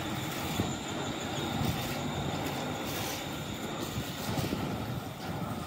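Steady low rumble of a passing vehicle, with a faint high squeal above it.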